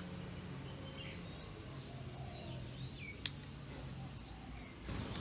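Faint birds chirping in short swooping whistles over a steady low hum, with one sharp click about three seconds in and a rise of handling noise near the end.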